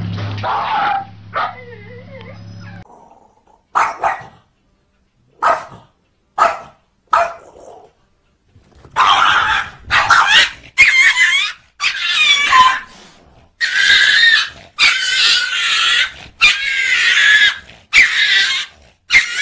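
A cat and a small dog fighting: a few short yaps, then a string of loud, wavering cries about a second long each, repeating.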